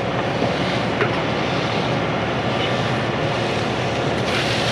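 Concrete pump truck's diesel engine running steadily.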